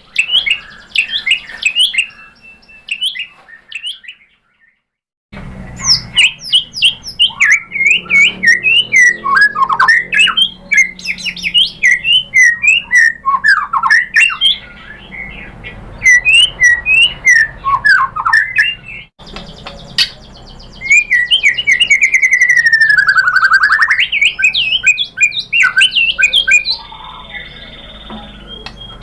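White-rumped shama (murai batu) singing a rapid, varied run of whistles, trills and chattering notes, breaking off briefly about four seconds in. Later comes one long whistle that slides down and back up.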